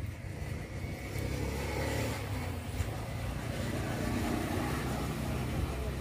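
A steady low engine rumble, like a motor vehicle running close by, growing a little louder about a second in.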